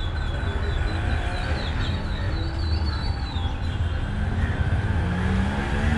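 A bird chirping in a quick run of short high notes, about four or five a second, over a steady low rumble; the chirping stops about halfway through.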